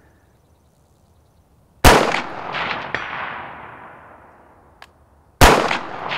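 Two rifle shots from a 5.56 AR-15 special purpose rifle with a muzzle brake, about three and a half seconds apart, each a sharp crack with a long rolling echo. Fainter metallic hits follow each shot, typical of steel targets being struck.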